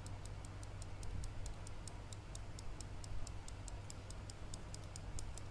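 Rapid, perfectly even ticking, about five ticks a second, over a steady low hum.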